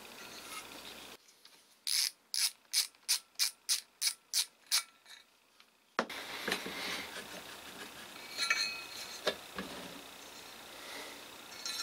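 Ratchet screwdriver clicking about ten times at roughly three clicks a second, backing out the screw in an electric blower's aluminium impeller hub. The last clicks fade. Then the loose metal parts are handled with light clinks and knocks.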